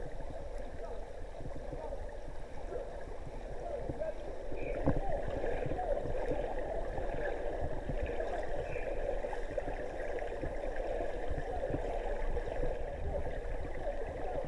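Muffled underwater churning and bubbling of pool water stirred by people running in place, with many small crackles and one brief thud about five seconds in.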